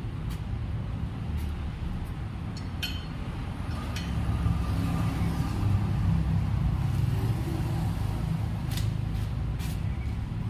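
Low, steady engine rumble that grows louder about four seconds in and eases again near the end, with several light clicks and knocks.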